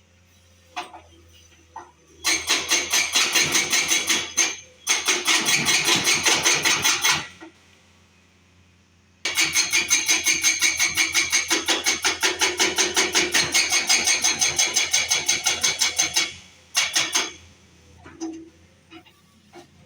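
Rapid mechanical hammering, about seven evenly spaced blows a second. It comes in a burst of about five seconds, then a longer burst of about seven seconds, then brief bursts near the end.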